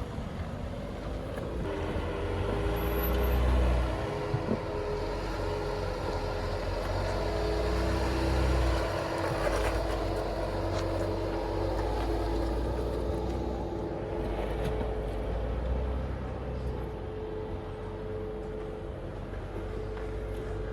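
Off-road Jeep engine crawling over rock, rising with throttle pushes about two to four seconds in and again around eight seconds, over a steady whine.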